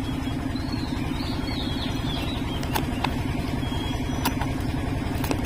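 An engine runs steadily with a fast, even low throb, while scissors snip a few times at the seal of a small cardboard smartwatch box.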